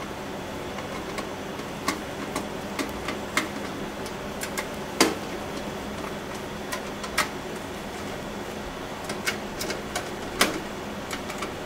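Screwdriver driving screws into a steel PC case's drive bay to fasten a DVD drive: irregular small metal clicks and taps, with a louder knock about five seconds in and another near ten seconds, over a steady hum.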